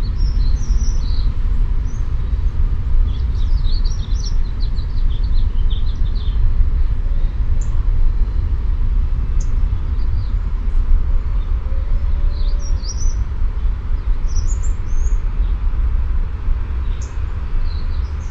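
Small birds chirping and twittering on and off in an outdoor garden, over a loud, steady low rumble of background noise.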